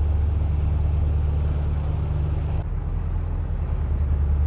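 Narrowboat's diesel engine running steadily at low revs. About two and a half seconds in, its note drops, as the throttle is eased back.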